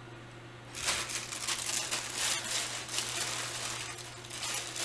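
Candy packaging crinkling and rustling as it is handled, starting about a second in: a dense run of small crackles.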